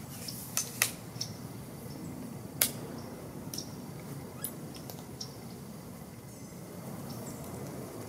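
A few sharp metallic clicks and clanks as a small cargo van's sliding side door is unlatched and pulled open and gear is handled, the loudest about two and a half seconds in, over faint high chirps.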